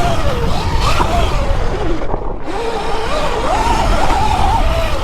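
72-volt Sur Ron electric dirt bike's motor whining, rising and falling in pitch as the throttle is worked, under heavy wind rumble on the microphone.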